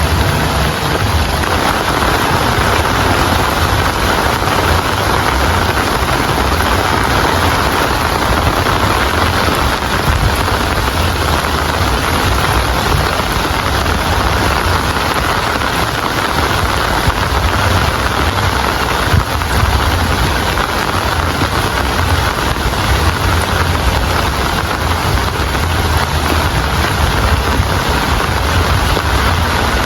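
Steady rain, an even hiss with a low rumble underneath and no breaks.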